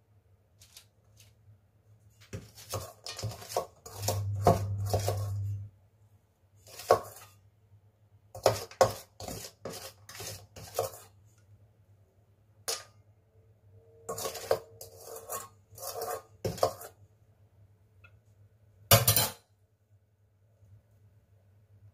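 Metal spoon scraping and clinking against a stainless steel pot as chocolate cookie dough is scooped out, in irregular bunches of short scrapes and knocks. A low hum sounds for about a second and a half, about four seconds in.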